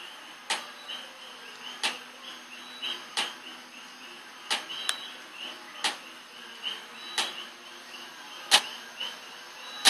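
Battery-powered baby swing running, its mechanism giving one sharp click at each swing, about every 1.3 seconds, over a faint rapid chirping.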